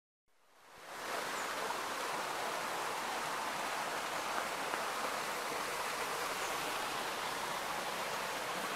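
Steady, even rushing of a mountain stream's running water, fading in about half a second in.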